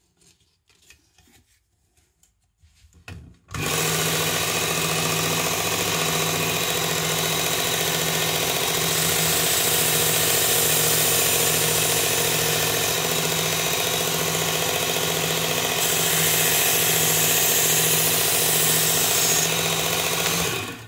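Work Sharp Ken Onion belt sharpener with its blade grinding attachment switching on about three and a half seconds in and running steadily on the medium belt as a knife edge is ground, then switching off near the end.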